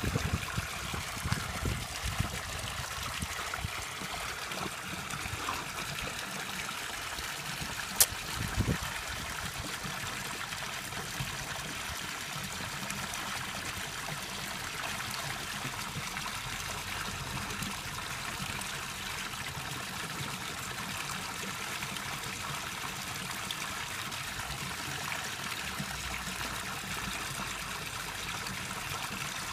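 Steady trickling, flowing water of a koi pond. A few brief knocks in the first nine seconds, one sharp click about eight seconds in.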